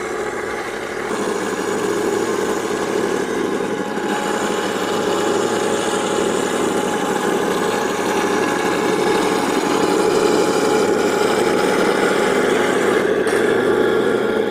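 Simulated tank engine running steadily from the onboard sound unit of a 1/16 MATO all-metal Tiger I RC tank. It gets a little louder about a second in and again around four seconds in.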